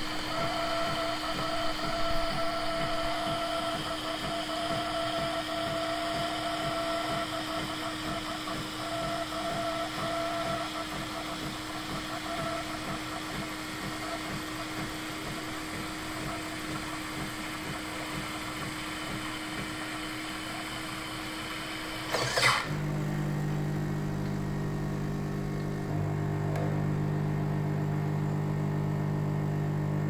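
Dr.coffee H10 automatic coffee machine frothing and dispensing milk: its pump and frother run steadily with a whine. About three quarters of the way through there is a short click, and the running changes to a lower, slightly louder hum.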